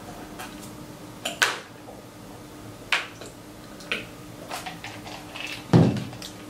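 Close-up eating noises: a handful of short, sharp mouth smacks and clicks from finger-licking and chewing fried shrimp, roughly a second apart, with a louder, deeper one shortly before the end.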